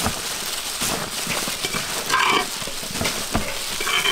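Plastic-gloved hands tossing and mixing a big basin of shredded fruit salad: a continuous crinkling, rustling hiss with scattered soft knocks. A short higher-pitched sound comes about two seconds in and again near the end.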